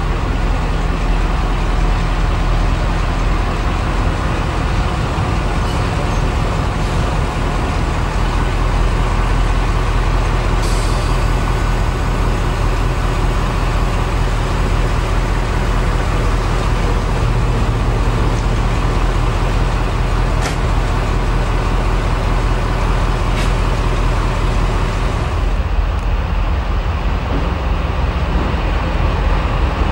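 Hymek diesel-hydraulic locomotive's Maybach engine running steadily close by with a deep, even throb, its note shifting a little about a quarter and again about halfway through.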